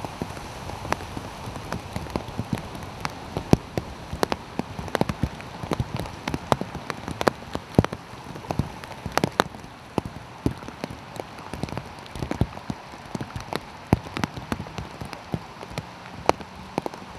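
Steady rain falling on a flooded street: a continuous hiss broken by many irregular sharp taps of individual drops landing close by.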